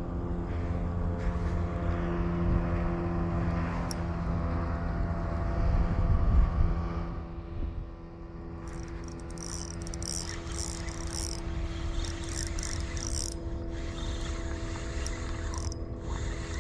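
A boat's motor running steadily under way, its noise swelling about six seconds in and easing off about two seconds later. Over the second half, on and off, comes a high-pitched hiss.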